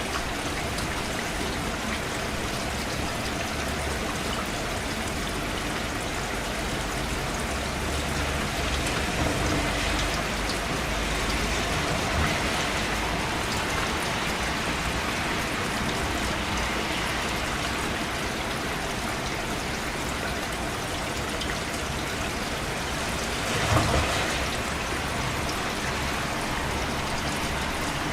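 Steady rain falling, an even hiss of drops with a watery trickle under it. A brief louder swell comes about 24 seconds in.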